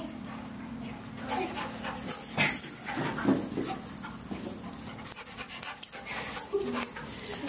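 A dog panting and sniffing as it works nose-down around boxes searching for a scent, with irregular short bursts of breath and movement. A low steady hum runs under the first couple of seconds.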